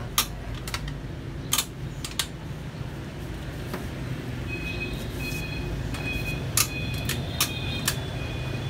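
Sharp metal clicks and knocks from a reclining wheelchair's backrest-release lever and frame as it is worked, a few near the start and a quicker cluster in the second half, over a steady low hum. From about halfway a faint high tone comes and goes.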